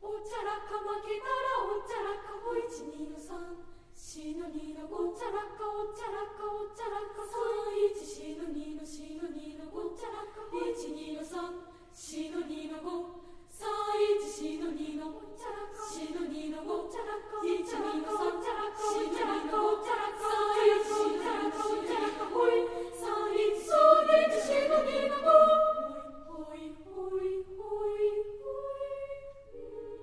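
Junior high school choir singing a cappella in Japanese, a lively rhythmic piece with sharply accented syllables. Near the end the voices thin out to a single falling line.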